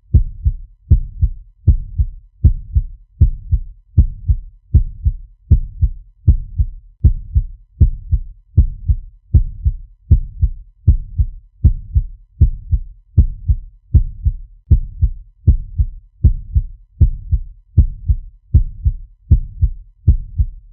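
Fast heartbeat sound effect: an even, rapid rhythm of low double thumps (lub-dub), about three beats every two seconds.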